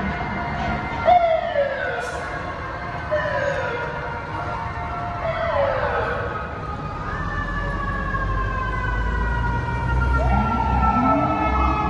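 Several emergency vehicle sirens sounding at once from a police utility and fire trucks responding: overlapping siren tones with a falling sweep repeating about every two seconds. From about seven seconds in, a fire truck's deep engine rumble joins, and a siren glides back up in pitch near the end.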